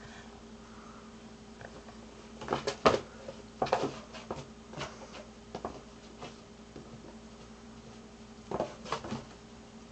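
Cats pawing and scratching at a cardboard box, short bursts of scratching and rustling cardboard in clusters, about two to three seconds in and again near the end, over a faint steady hum.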